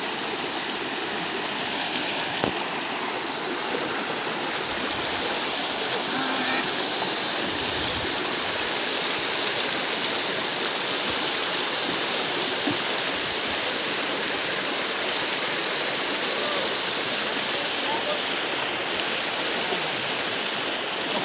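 Shallow rocky stream running, a steady rush of water over stones, with one sharp knock a couple of seconds in.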